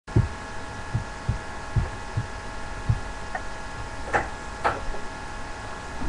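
Irregular low thumps, about six in the first three seconds, with two sharper knocks a little after four seconds, over a steady electrical hum.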